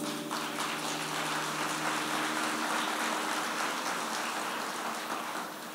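A crowd applauding as a dense patter of claps that dies away near the end, over a soft held chord of background music.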